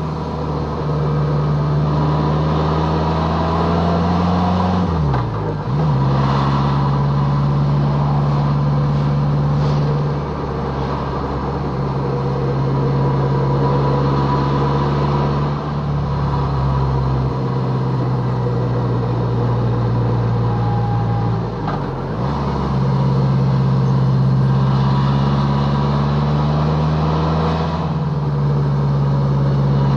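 BMW K1200LT's inline four-cylinder engine running steadily under way, with wind rushing over the bike. Twice, about five seconds in and again a little past twenty seconds, the engine note dips briefly and picks back up.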